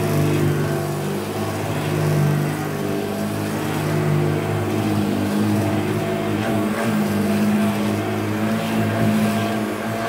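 1972 Hoover Junior 1354A upright vacuum cleaner running on carpet, its motor and beater brush roll making a steady hum and rush of air as it is pushed back and forth. The brush roll has a slight rattle whose cause the owner has not found.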